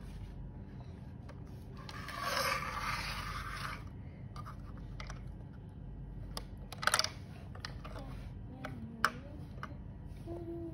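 Plastic Lego mini-doll figures and bricks being handled and moved over a Lego build. A scraping rustle starts about two seconds in and lasts about two seconds. A few sharp plastic clicks come close together around seven seconds in, and another comes near nine seconds.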